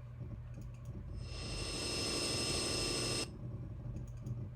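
A sound effect from the Adobe Audio library previewed in Final Cut Pro: a steady high whine over hiss, jet-like, swelling in about a second in and cut off abruptly about two seconds later. Faint mouse clicks before and after it.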